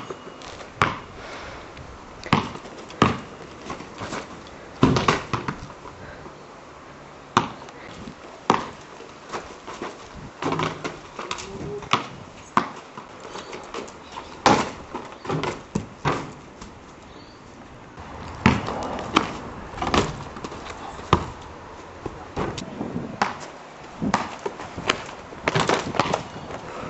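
Basketball bouncing on a concrete court: a long series of sharp, single bounces at an uneven pace, about one a second, with short pauses between runs.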